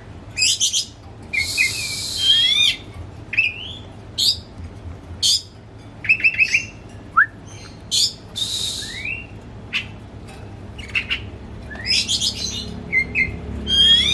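Caged Oriental magpie-robin singing a fast, varied song of sharp chirps and whistled rising and falling notes, broken by a couple of longer harsh, buzzy notes.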